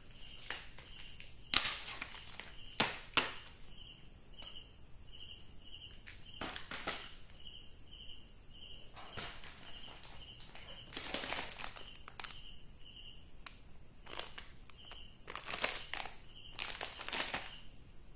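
Rustling and knocking of plastic-wrapped packets being handled and set down on a cardboard sheet, in short irregular bursts. A cricket chirps steadily in the background, about two chirps a second.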